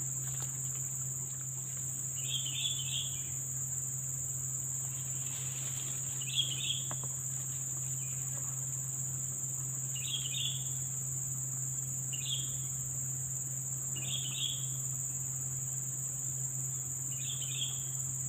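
Steady high-pitched drone of insects, with a short chirping call repeating six times, two to four seconds apart, and a low steady hum underneath.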